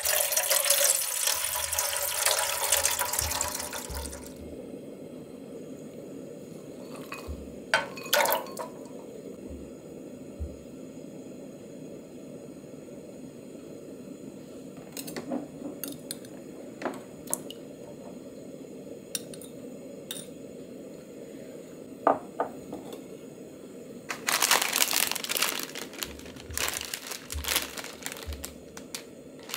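Water poured into a small aluminium pot, then the steady low hiss of a portable gas burner with a few light clicks and taps as sliced rice cakes and minced garlic go into the pot. Near the end, a plastic ramen packet crinkles in the hands.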